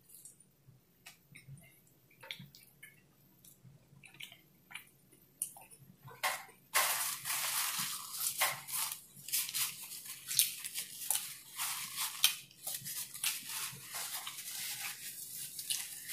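A person chewing a mouthful of burger close to the microphone: faint scattered mouth clicks at first, then louder, busy chewing with many small smacks and clicks from about six and a half seconds in.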